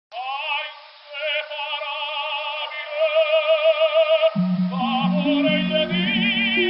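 Operatic soprano singing with a wide vibrato, at first with nothing low beneath her; a lower accompaniment comes in about four seconds in.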